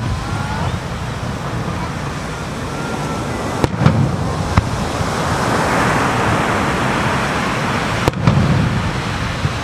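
Aerial fireworks shells bursting overhead: sharp booms about three and a half and four and a half seconds in, and again about eight seconds in, each followed by a low rumble. Underneath is a steady wash of surf on the shore.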